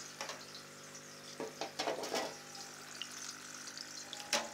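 Aquarium water trickling and splashing at the surface, plausibly from the external filter's return, over a steady low hum. There are a few louder bursts of noise about one and a half to two seconds in and again near the end.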